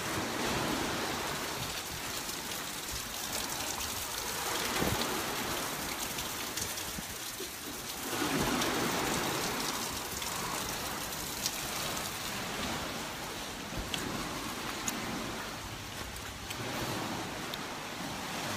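Rain falling steadily, a constant hiss with louder surges every few seconds.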